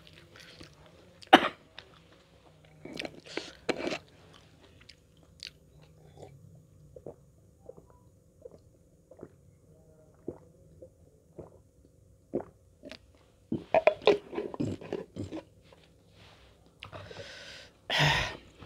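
Close-miked eating sounds: a person biting and chewing, with short crunches scattered through it. A louder noisy rush comes near the end.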